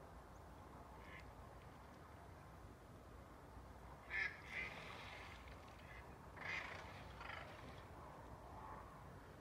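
Mallards quacking in alarm as a hawk lunges at them, a few loud quacks about four seconds in and again about six and a half seconds in, over a faint steady background hiss.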